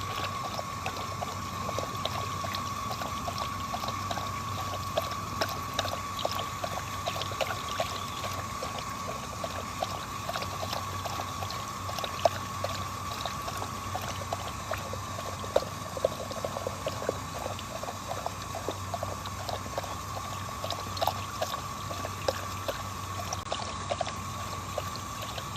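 Water running from a park drinking fountain, pouring and splashing steadily with a thin steady hiss and many small irregular splashes.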